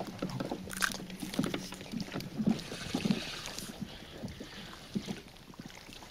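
Water lapping and slapping against the hull of a small aluminium bass boat, with irregular light knocks as the boat rocks.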